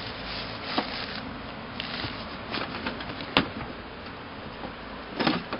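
A few short, sharp clicks and knocks over a steady background hiss, the loudest about three and a half seconds in and a quick cluster near the end.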